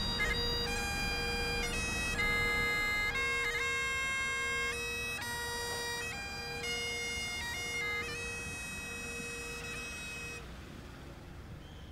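Bagpipes playing a tune over a steady drone, the melody notes changing every half second or so; the pipes stop about ten seconds in.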